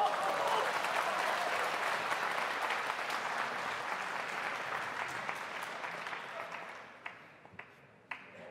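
Audience applauding. It fades out in the last second or two, leaving a few scattered single claps.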